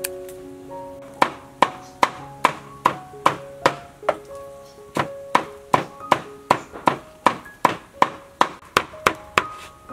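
Knife slicing bitter gourd on a wooden cutting board in steady, evenly spaced strokes, about two and a half a second, starting about a second in with a short pause midway. Gentle background music plays underneath.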